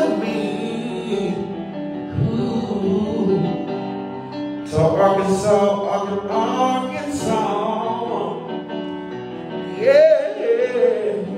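A man singing a slow gospel-style song over sustained keyboard chords, his voice wavering in vibrato on a held note near the end.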